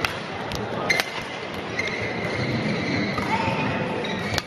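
Badminton rally: sharp cracks of rackets hitting the shuttlecock at the start, about a second in and again near the end, with court shoes squeaking on the mat in between, over crowd chatter in a large hall.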